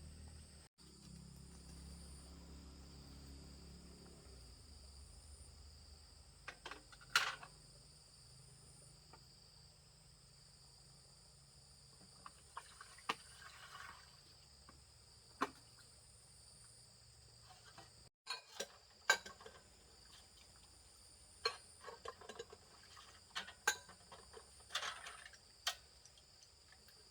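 Steady high-pitched insect chorus with two continuous shrill tones, broken by scattered sharp clinks and knocks, more of them in the last third.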